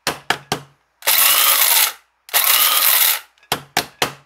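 Continental electric blade coffee grinder grinding dark espresso beans in pulses: three quick taps, two runs of about a second each, then three more quick taps. Each longer run carries a rising motor whine as it spins up.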